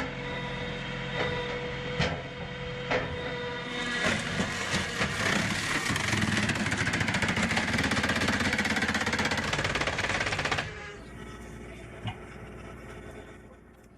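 Sawmill circular saw running with a steady whine. About four seconds in it bites into a log with a loud, fast rasping cut that lasts until near the eleventh second, then drops back to a lighter running sound.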